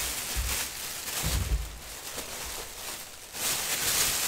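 Plastic bag rustling and crinkling as it is handled, loudest near the end, with a couple of low dull thumps of items being moved on the table.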